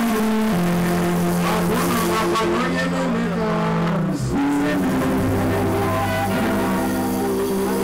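Live stage music: a man singing into a microphone over long held chords, with a steady low bass note coming in about five seconds in.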